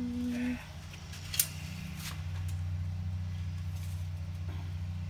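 Lawn mower engine running steadily some way off, growing louder about two seconds in. A person's hummed note ends about half a second in, and there is one sharp click.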